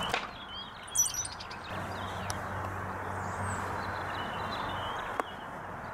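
Small birds chirping and calling, with the loudest chirps about a second in. A steady low hum starts about two seconds in, and there is a single sharp click near the end.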